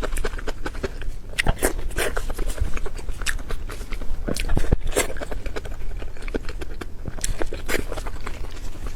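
Close-miked chewing and wet lip smacking of someone eating, with irregular clicky mouth sounds.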